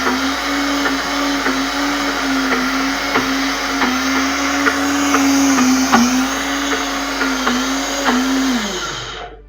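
Silver Crest blender motor running at speed on thick peanut paste. It gives a steady whine that dips slightly now and then, with scattered clicks. Near the end it winds down, falling in pitch, as it is switched off.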